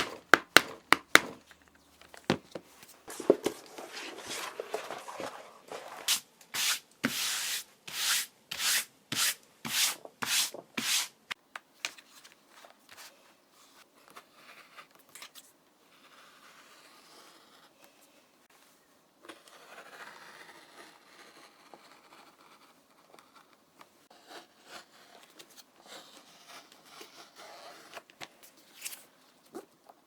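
Hand work on leather: a few sharp clicks, then a run of about ten quick rubbing strokes, roughly two a second, followed by quieter scraping and handling.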